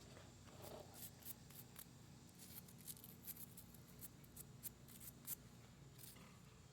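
Faint scratchy strokes of a brush scrubbing a lawn mower part in degreaser and hot water, an uneven run of quick strokes, densest in the middle.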